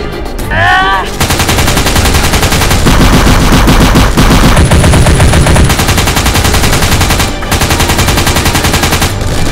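Sustained automatic-gunfire sound effects: rapid machine-gun bursts overlapping almost continuously, starting about a second in, with a brief break near the end.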